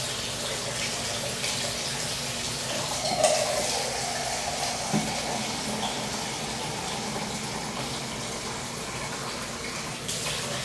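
Kitchen tap running steadily as water is drawn by the cup for a stock, shut off near the end; a couple of light knocks partway through.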